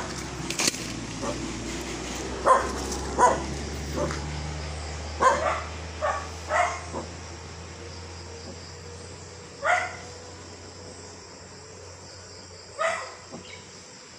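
A dog barking in short single barks at irregular gaps, most of them in the first half, then one near the middle and a couple more near the end.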